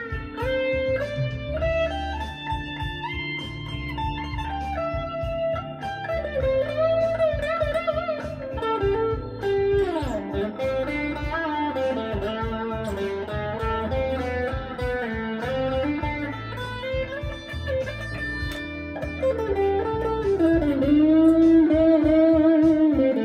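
Electric guitar playing a single-note lead line with string bends and vibrato, including a sliding drop in pitch about ten seconds in, over a backing track with bass and drums.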